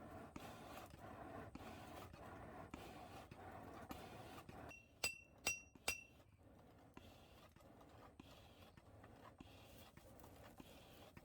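Three quick hammer strikes on steel, about half a second apart, each leaving a short bright metallic ring, over a faint steady background.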